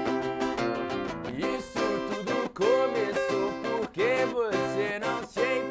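A band playing an instrumental passage: fast, evenly strummed guitar chords, joined about a second and a half in by a lead guitar playing bent notes.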